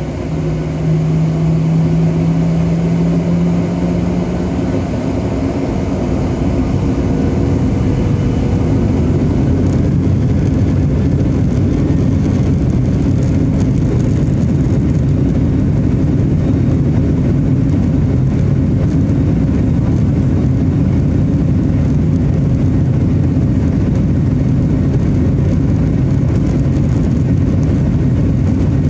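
Cabin noise of a Boeing 737 airliner taxiing: the jet engines' steady rumble heard through the fuselage from a seat over the wing. A low steady hum fades out about five seconds in, and the noise grows slightly louder about a second in, then holds even.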